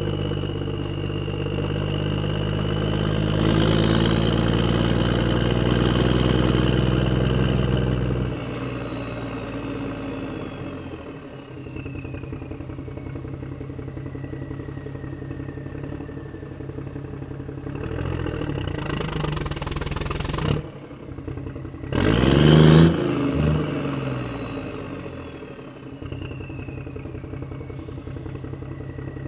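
Radio-controlled toy excavator's electric motors and gearboxes whining, with a high whine that slowly falls in pitch and a low hum that drops away about a third of the way in. Two bursts of clatter come in the second half, the second the loudest.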